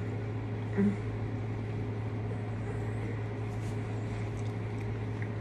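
A steady low hum with no change, and one short, low, muffled sound about a second in.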